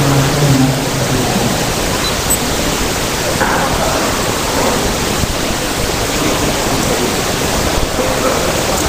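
Steady, loud hiss covering a man's voice, which is heard faintly through it in the first second and a half and again briefly a few seconds in.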